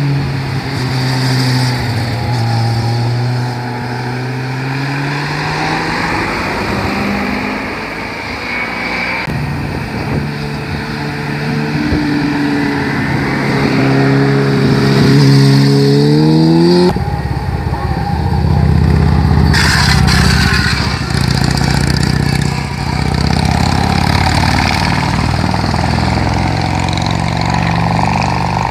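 Motorcycle engines riding through tight bends one after another: the engine note falls as a bike slows into a bend, then climbs as it accelerates out. About halfway through, a different, deeper engine sound takes over.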